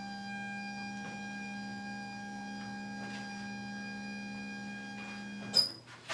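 Electric massage device's motor humming steadily at one pitch, then switched off with a sharp click near the end.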